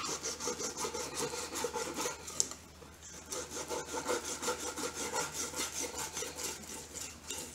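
Blunt knife sawing back and forth through a flathead's flesh against a plastic cutting board: rapid rasping strokes, about four a second, with a short pause about halfway through.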